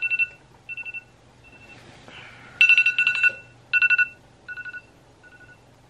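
Smartphone alarm going off: rapid, trilling electronic beeps on two pitches in bursts, a loud burst at the start and again about two and a half seconds in, each followed by fainter repeats that die away.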